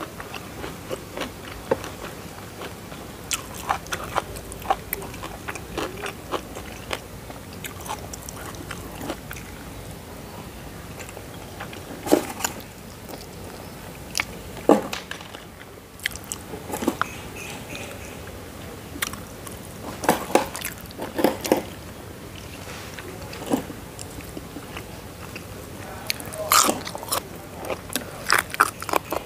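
A person eating close to the microphone: chewing and biting, with short sharp crunches and mouth clicks scattered throughout. Several clusters of louder crunches stand out.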